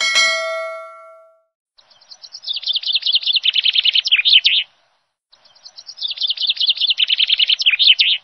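A bell-like chime struck once and ringing away over about a second and a half, then a bird's song of rapid high chirps that quicken into a trill, heard twice in identical phrases.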